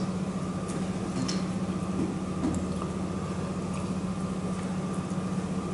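Steady electrical or ventilation hum of a small room, with a few faint clicks.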